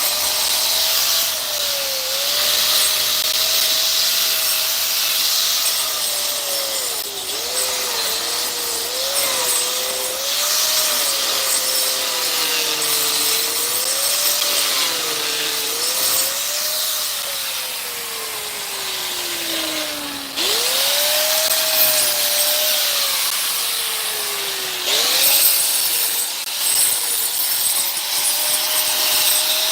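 An electric power tool runs continuously while working wood. Its motor pitch sags under load and recovers again and again. Near the middle it slows steadily for a few seconds, then jumps back to full speed.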